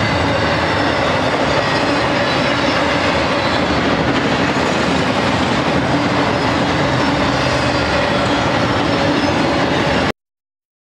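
Intermodal freight train cars, loaded with double-stacked containers and truck trailers, rolling past at speed: the steady, loud noise of steel wheels running over the rails. The sound cuts off suddenly about ten seconds in.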